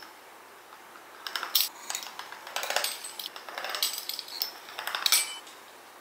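Metal kitchen utensils clinking and scraping against cookware in a run of clatter starting about a second in; the last clink, near the end, rings briefly.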